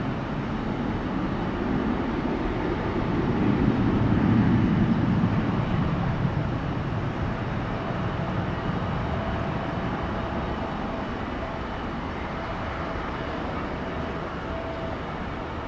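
Jet airliner engine roar, swelling to a peak about four seconds in and then slowly fading away.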